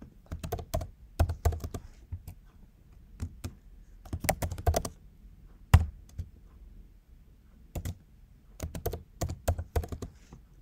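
Computer keyboard typing in short bursts of quick keystrokes with pauses between them, and one sharper keystroke about halfway through.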